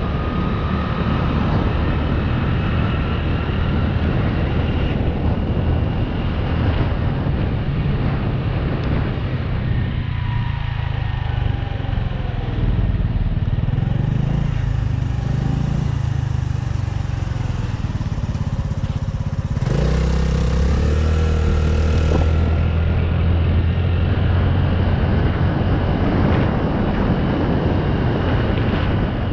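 Small motorcycle's engine running under way, its pitch rising and falling as the rider works the throttle, with an abrupt change in the engine note about twenty seconds in. Wind rushes steadily over the helmet-mounted microphone.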